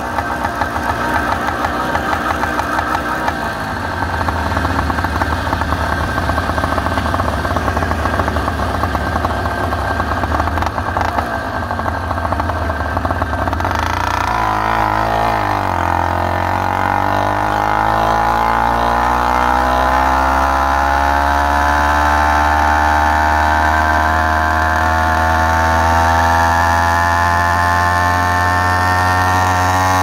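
Motorized bicycle's two-stroke engine running while riding. About halfway through it drops off briefly, then climbs steadily in pitch as the bike accelerates.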